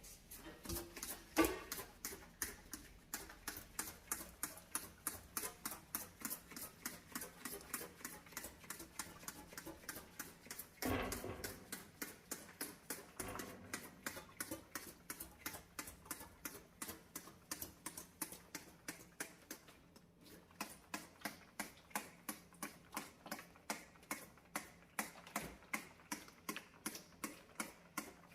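Brush scrubbing a stovetop in short, quick strokes, about three a second, each a crisp scratch. There is a louder knock about a second in and a longer, heavier scrub about eleven seconds in.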